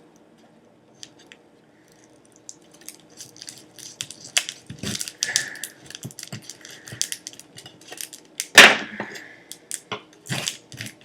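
Knife sawing and cracking through a block of frozen ice cream on a cutting board: a quick run of scraping, crunching strokes that starts a couple of seconds in, with one loud sharp knock about two-thirds of the way through.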